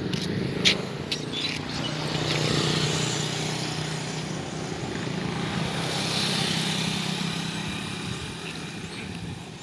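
Road traffic passing close by, including motorcycles: two vehicles go past, one about two to three seconds in and another around six seconds, over a steady low engine hum. A few sharp clicks in the first second and a half.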